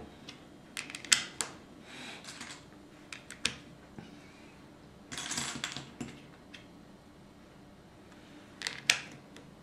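Small plastic Lego pieces clicking and tapping as tiles are pressed onto a baseplate, in a few scattered sharp clicks, with a brief rustle about halfway through.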